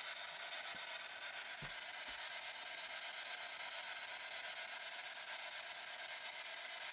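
Quiet room tone: a steady hiss with two faint low thuds, about a second and a half and two seconds in.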